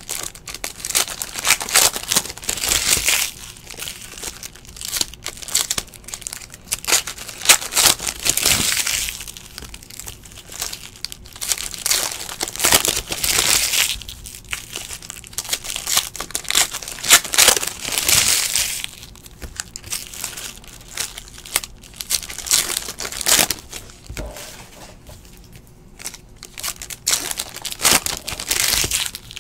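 Foil wrappers of Donruss basketball card packs crinkling and tearing as they are opened by hand, in loud bursts every few seconds with quieter crackling between.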